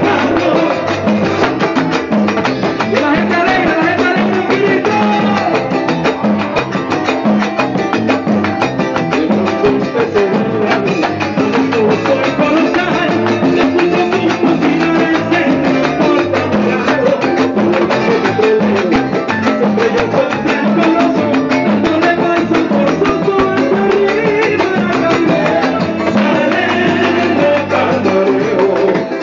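Venezuelan gaita zuliana music with singing over a dense, steady Latin percussion rhythm, with congas (tumbadoras) played by hand.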